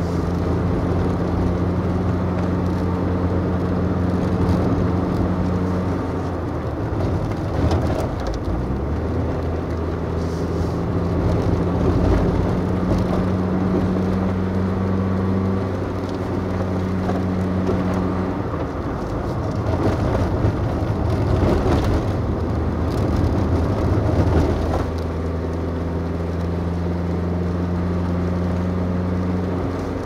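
Vehicle engine running with steady road and tyre noise while climbing a mountain road; the engine hum drops away and comes back a few times.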